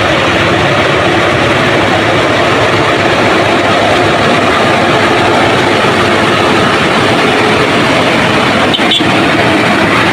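Steady, loud running noise of a heavy road vehicle on the move, with one brief sharp knock about nine seconds in.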